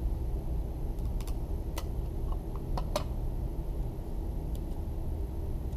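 Light clicks and ticks from a roll of PCT-2M clear handling tape being handled as a strip is worked off it, about eight small clicks in the first four and a half seconds. Under them runs a steady low room hum.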